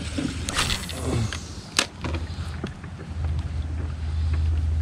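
Baitcasting fishing reel being cranked, a low steady mechanical whir from about two seconds in, with a sharp click just before it starts.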